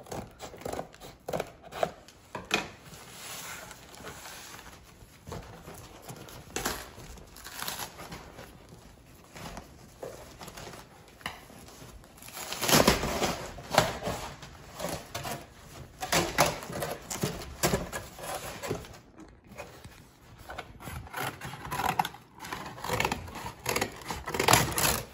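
A corrugated cardboard shipping box being forced open: scissors snipping, packing tape and cardboard flaps tearing, and the box knocking and scraping as it is shifted. The sound is a series of irregular rips, crackles and knocks, with the loudest stretch of tearing and handling about halfway through.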